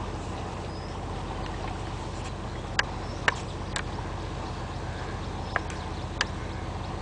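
Boat engine running steadily in a low, even hum as the boat moves along the water, with five short sharp clicks between about three and six seconds in.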